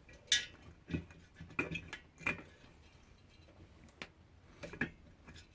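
Scattered light metallic clicks and scrapes from screws being fitted and hand-tightened into a diesel heater's burner parts, about half a dozen irregular taps.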